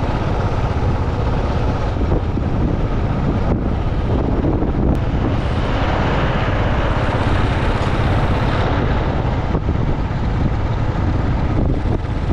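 Single-cylinder Royal Enfield Classic motorcycle engine running steadily at cruising speed, with wind rushing over the microphone.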